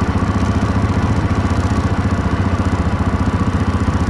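ATV engine idling, loud and steady with an even, rapid putter.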